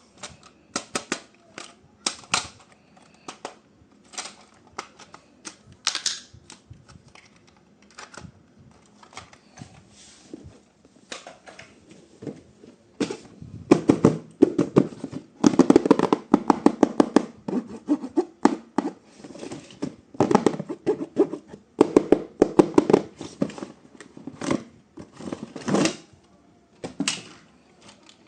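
Irregular clicks and clatter of small hard objects being handled, sparse at first, then dense and loud through the middle stretch.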